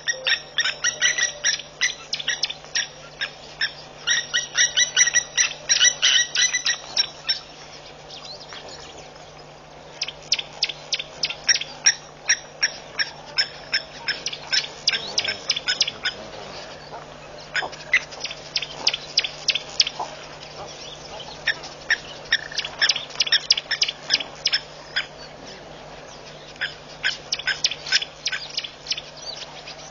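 A pair of blacksmith lapwings giving rapid, metallic 'tink' alarm calls in defence of their nest, with warthogs close by. The calls come in bouts of several sharp notes a second, with pauses of a second or two between bouts.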